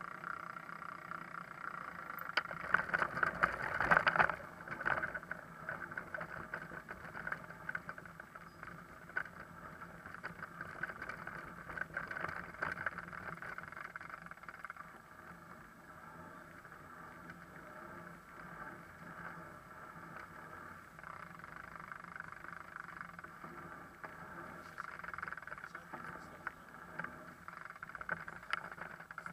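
Bicycle rolling over cobblestone and brick paving, heard through a camera mounted on the bike: a continuous rattling vibration, with a run of louder jolts a few seconds in.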